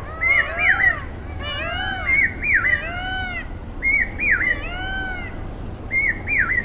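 Peacocks (Indian peafowl) calling: loud, repeated arching cries in four bouts, with a steady low rumble underneath.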